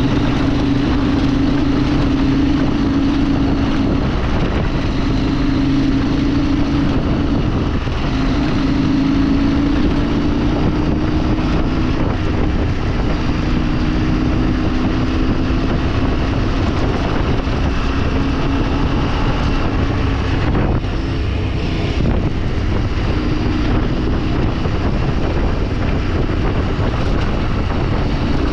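Vehicle engine running while driving, its pitch shifting every few seconds with speed, over steady wind noise on the microphone.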